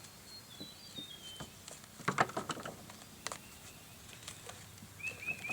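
Screwdriver prying a staple out of a wooden bee package: a scatter of small scraping clicks and taps, thickest about two seconds in.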